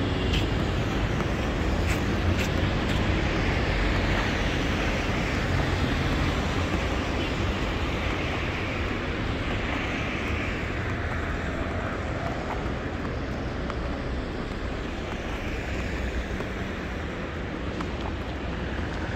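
City street traffic: a steady noise of vehicles going by, with a constant low rumble and several passing cars that swell up and fade away.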